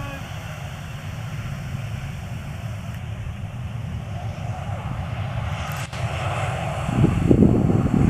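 Twin-engine jet airliner's engines, a steady low rumble growing louder, turning to a much louder, rougher roar about seven seconds in.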